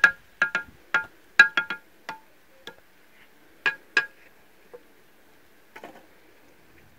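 Irregular sharp knocks, each with a brief ringing tone at the same pitch, several coming in quick pairs and thinning out after the first few seconds.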